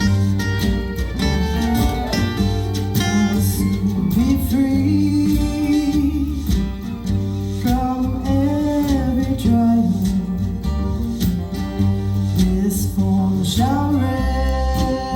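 Live acoustic folk music: guitar playing, with a voice singing a slow, gliding melody over it from about four seconds in.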